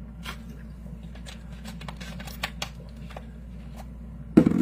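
Scattered light clicks and taps over a steady low hum, with a louder sound starting just before the end.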